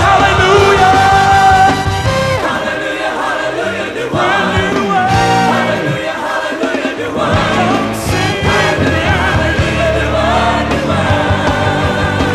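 Gospel choir singing with a full band accompaniment. The bass drops away for a few seconds in the middle and then comes back in.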